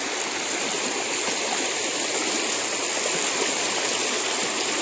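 Fast, shallow river current rushing over a stony bed and a line of piled rocks, a steady, loud rush of water.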